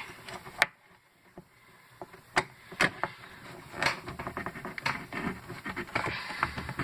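A hand tool dug into a battery's hard casing: a few sharp clicks, then dense scraping and clattering from about four seconds in, the tool failing to get through.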